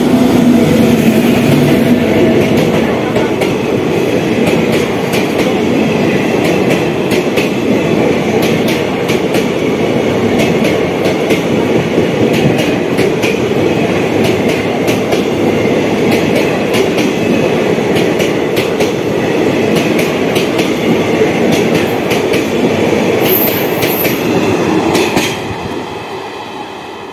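A passenger train hauled by a WAP-7 electric locomotive passing close by at speed: a steady rumble with rapid clickety-clack of wheels over the rail joints as the coaches go by. About 25 seconds in the noise falls away quickly as the last coach passes.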